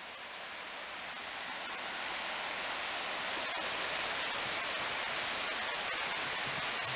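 Steady rushing hiss of sea surf on a beach, fading in over the first two seconds and then holding even.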